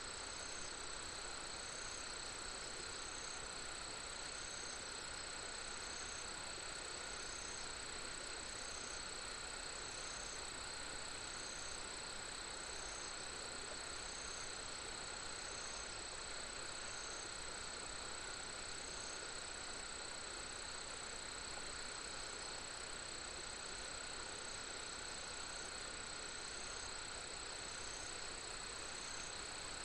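Insect chorus: a steady high trill with a shorter call repeating about every second and a half, over a soft steady hiss.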